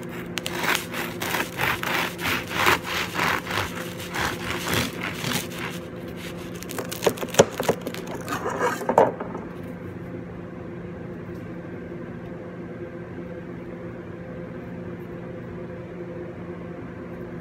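Serrated bread knife sawing through the crisp crust of a sourdough loaf, a rasping stroke about twice a second, followed by a few sharp crackles and knocks as the cut goes through and the loaf is split. After that only a steady machine hum remains.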